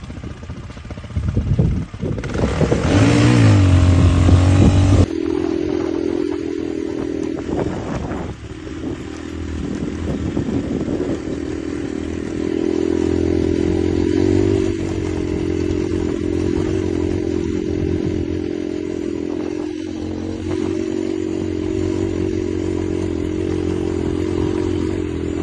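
Motorcycle engine running steadily while riding. A louder stretch with a rush of noise and a rise in engine pitch comes about two seconds in and lasts about three seconds.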